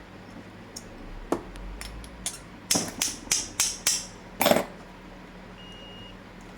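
Hand-handled tools and test-lead clips knocking and scraping on a workbench: a few sharp clicks, then a quick run of four or five short clattering knocks and one louder one a little later. A steady low hum runs underneath.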